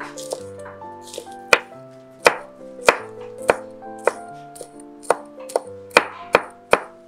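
Chef's knife chopping hot green peppers on a wooden cutting board: about a dozen sharp knocks of the blade hitting the board, one or two a second, over background music.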